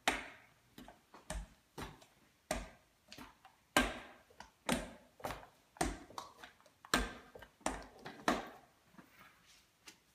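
A rolling pin knocking and rolling on a countertop as tortilla dough is rolled out: a sharp knock with each back-and-forth stroke, about one every half second to second, stopping shortly before the end.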